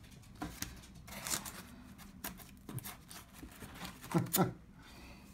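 Paper and card sleeves of 78 rpm records rustling and sliding as the records are handled and swapped, with scattered light knocks and a louder pair of thumps about four seconds in.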